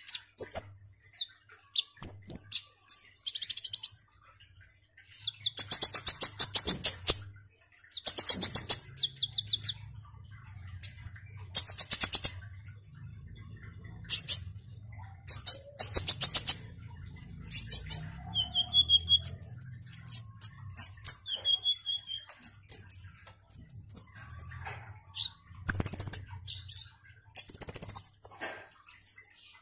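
Male Van Hasselt's sunbird singing: bursts of rapid, high-pitched chattering trills about a second long each, and in the second half thin high whistled notes, the last ones falling in pitch.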